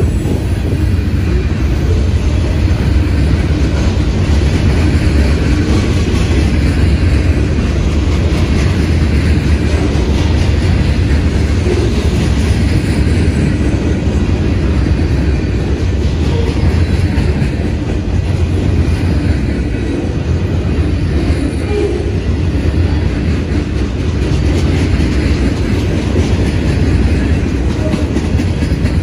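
Freight cars of a manifest freight train rolling past at close range: a loud, steady rumble of steel wheels on the rails.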